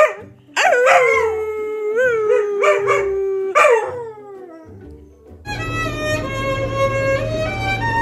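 A dog howling: one long howl held on a single pitch for about three seconds with slight wavers, then a shorter howl that falls away. About five and a half seconds in, a violin starts playing a slow melody of held notes.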